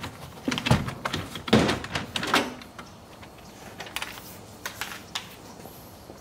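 Plastic trim panel along the top of a Tesla Model Y's frunk being pulled off its snap-on clips: several loud pops and rattles in the first two and a half seconds, then a few faint clicks.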